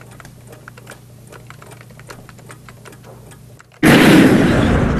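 Faint, irregular ticking over a low steady hum, then about four seconds in a sudden loud burst of noise that dies away over a second or so.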